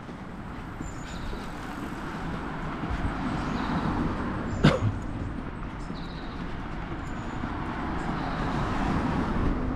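Street traffic noise: a car coming along the road, growing louder toward the end. One sharp click sounds about halfway through.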